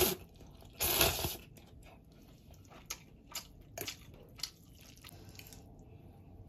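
Eating instant noodles with a metal fork: two loud noisy eating sounds near the start, then a few small clicks and taps of the fork in the bowl.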